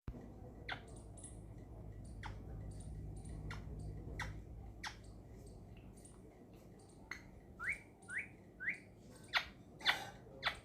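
Pet parrot calling: short sharp chirps every second or so, then from about seven seconds a run of quick rising whistles about half a second apart.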